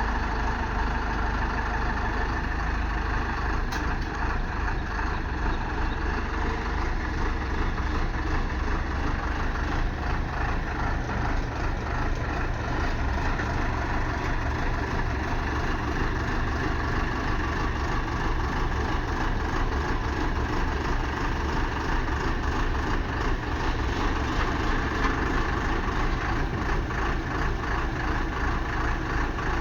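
Diesel engine of a Hyundai 140LC-9 crawler excavator running steadily at a constant level.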